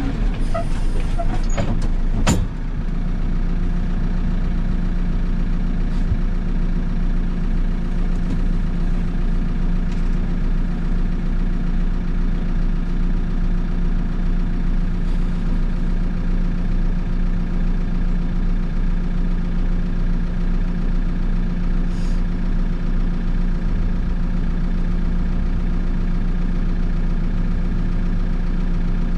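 Backhoe loader's diesel engine idling steadily, heard from inside the cab. A few light clicks and one sharp knock come about two seconds in.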